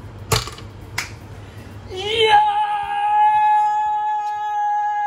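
Two sharp clicks, then a voice-like musical note slides in about two seconds in and holds one perfectly steady high pitch with overtones.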